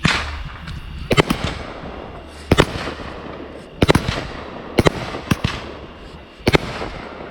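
Consumer fireworks going off: a series of sharp bangs roughly a second apart, some in quick pairs, each trailing off in a crackling hiss.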